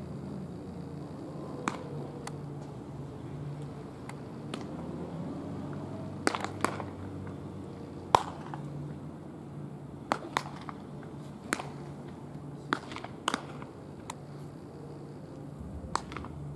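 Baseballs popping into leather gloves as pitchers play catch: a string of sharp pops at irregular intervals, some close and loud, others fainter, with the loudest about halfway through, over a low steady background hum.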